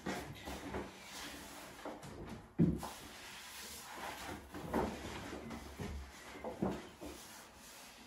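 Rustling and crinkling of a large pasted sheet of lining paper being flexed and pushed down behind a radiator, with a sharp knock about two and a half seconds in.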